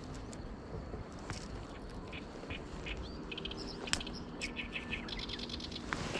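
Waterside birds calling, likely ducks: scattered short chirps and quick runs of brief high calls, busiest in the middle, over a steady low background rumble.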